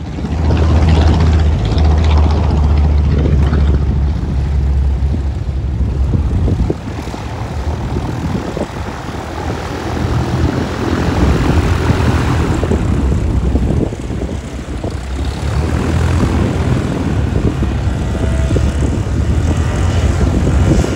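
Propeller aircraft engine running steadily, with a low rumble and two brief dips in level.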